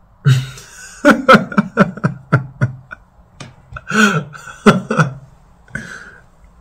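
A man laughing: a breathy burst, then a run of short chuckles about four a second, and two more breathy bursts later.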